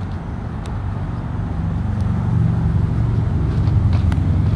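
Steady low hum of an idling engine, growing a little louder about two seconds in.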